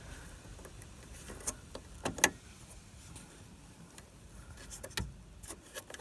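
A few scattered light clicks and knocks as a bulb holder is worked loose by hand in a car's light housing, the sharpest a little after two seconds in.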